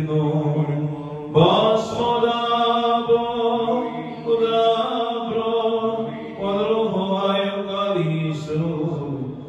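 A priest chanting a liturgical prayer, in long phrases of held notes that break off and start again about every two seconds.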